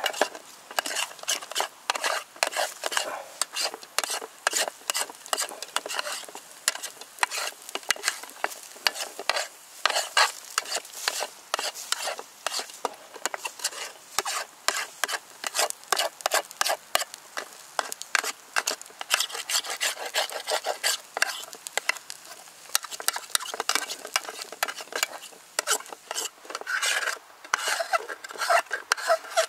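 A metal spoon stirring and scraping scrambled eggs around the bottom of an aluminium army mess tin: quick, irregular scrapes and clicks of metal on metal.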